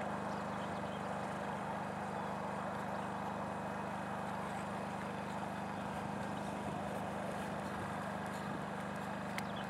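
Steady low machine hum over an even background rumble, unchanging throughout.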